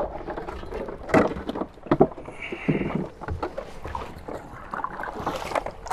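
Handling noises in a small fishing boat: several hollow knocks and bumps against the hull and a short hiss a little after two seconds in, over a low wind rumble on the microphone.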